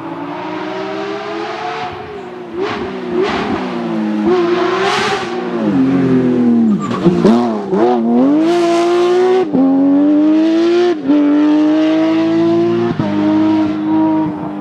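Porsche 911 GT3 rally car's flat-six engine at high revs, growing louder over the first half. Its pitch falls and jumps several times in the middle as it comes off the throttle and blips through downshifts, then it accelerates hard, with sharp drops in pitch at three upshifts.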